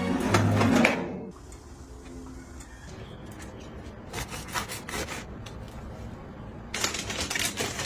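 Background music stops about a second in, leaving a few soft clicks. Near the end comes a run of repeated scraping, rubbing strokes, such as a utensil or blade working against a surface.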